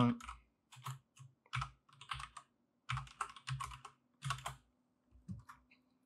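Typing on a computer keyboard: several quick runs of keystrokes with short pauses between them.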